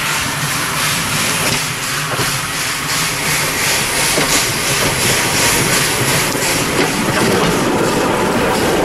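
Model T Ford rail car running along the track towards the listener and passing close, with regular clicking from its wheels on the rails.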